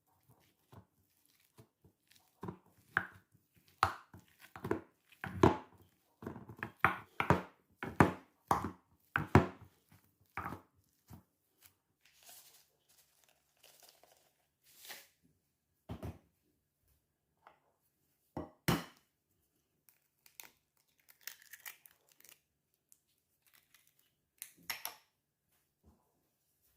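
Hand food preparation at a kitchen counter: a quick run of short crunching, scraping strokes, about two a second, then a few scattered strokes later on.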